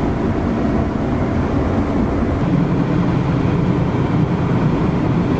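Car running on the road, heard from inside the cabin: steady engine hum and tyre and road noise.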